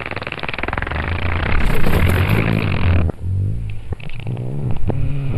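A man squatting in the sand, breaking wind as he defecates: a loud sputtering rattle that cuts off about three seconds in, followed by shorter, wavering low sounds.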